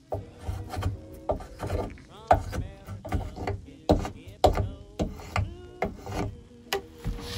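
Spokeshave cutting shavings from seasoned white oak in quick, repeated strokes, about two a second.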